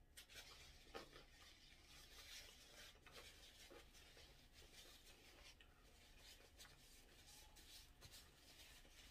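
Faint, irregular rustling of a paper napkin being handled, pressed to the mouth and folded, with scattered soft ticks.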